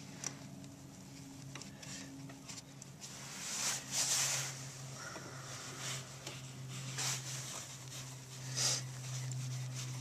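Handling noises of hands at work: rustling and scraping with a few faint clicks and several short hissy bursts, over a steady low hum.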